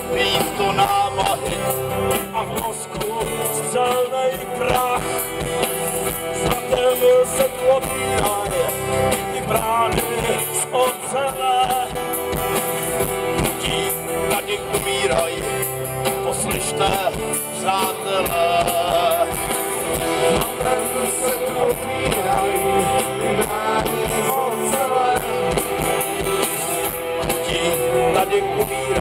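Live rock band playing loud amplified music with electric guitar, bass guitar and drums, heard from within the audience.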